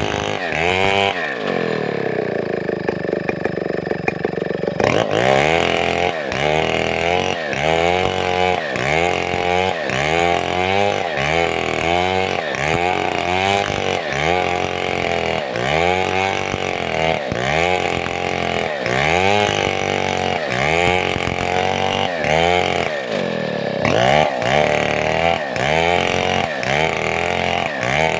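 Stihl 070-type (New West 707) two-stroke chainsaw running under load while ripping a log into boards. Its pitch drops about a second in and holds lower for a few seconds. It then rises and falls about once a second, dipping again near the end.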